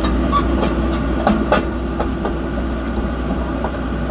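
Samsung SE130LC excavator's diesel engine running steadily, with a few sharp knocks about half a second and a second and a half in.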